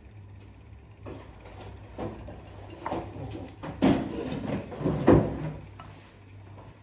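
Kitchen handling sounds: a series of separate knocks and bumps as bowls, containers and cupboards are handled, over a low steady hum.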